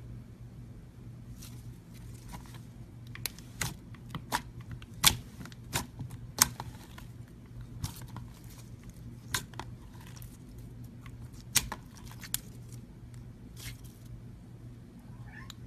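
A dozen or so irregular sharp clicks and snaps over a steady low hum, the loudest about five, six and a half, and eleven and a half seconds in.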